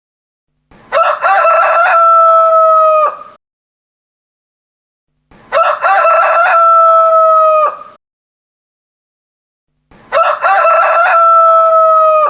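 Rooster crowing: three full cock-a-doodle-doo calls of about two and a half seconds each, evenly spaced with silence between, the last still sounding at the end.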